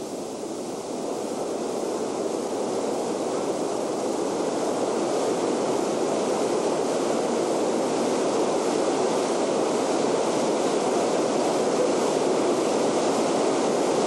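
Steady rush of a fast-flowing river, fading in over the first few seconds and then holding even.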